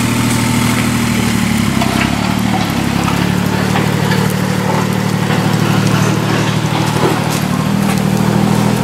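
Kubota compact tractor's diesel engine running steadily, its pitch shifting briefly about two seconds in.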